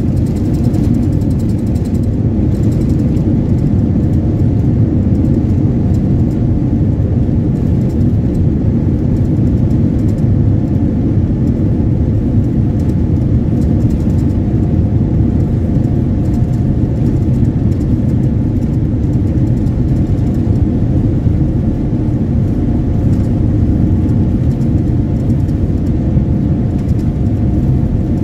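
Steady, loud low rumble in the cabin of a Boeing 787-9 rolling on the ground, the jet engines and wheels heard together, with a faint steady hum above it.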